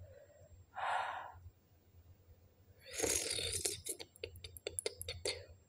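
A woman's hard breathing: a sigh-like breath out about a second in, then a louder hissing gasp around three seconds in, followed by a run of quick clicks. It is the breathing of a mouth burning from a very hot chili chip.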